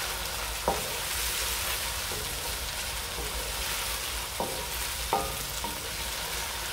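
Chopped onion sizzling in hot oil in a metal pan while a wooden spoon stirs it, with three short knocks of the spoon against the pan, about a second in and twice more later on.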